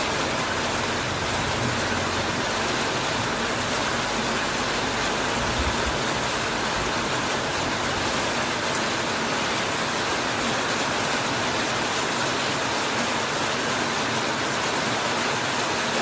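Heavy rain falling steadily on a corrugated metal roof and broad banana leaves, a dense, even hiss.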